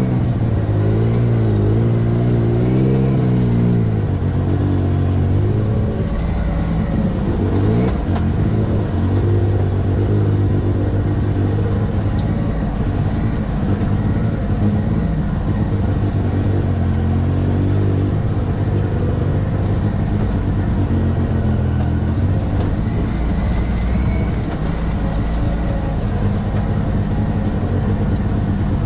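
Side-by-side UTV engine running under changing throttle, its pitch rising and falling for the first few seconds, rising quickly once about seven seconds in, then running steadier.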